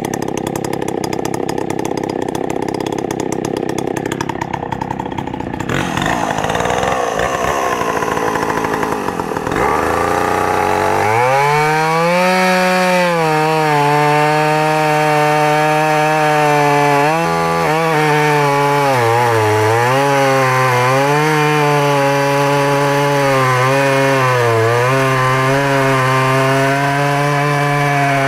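Vintage Dolmar CC 109 two-stroke chainsaw running at high revs, then from about eleven seconds in cutting into a wooden stump. Its engine note dips and recovers repeatedly under the load of the cut.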